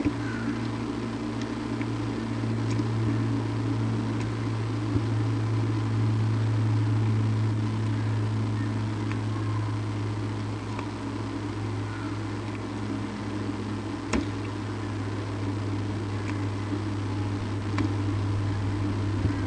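A steady low hum, with a few faint clicks scattered through it.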